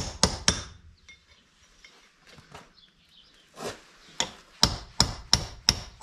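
Hammer striking a chisel set against the bearing race inside a wagon wheel hub, driving the old race out: metal-on-metal blows. Two blows come right at the start, then a pause of about three seconds, then steady blows at about three a second.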